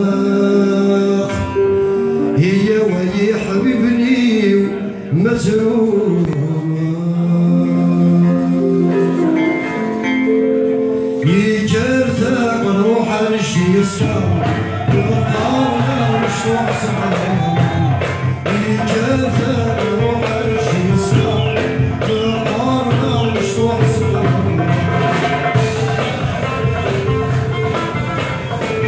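A man singing a Kabyle song, accompanying himself on a plucked mandole. The voice holds long notes in the first part, and the mandole's ornamented plucked melody runs on denser after about eleven seconds.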